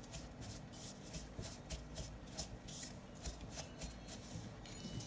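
Spatula stirring and scraping crushed crackers mixed with melted butter in a plastic mixing bowl: a soft gritty rasp with each stroke, about three strokes a second. The strokes die away shortly before the end.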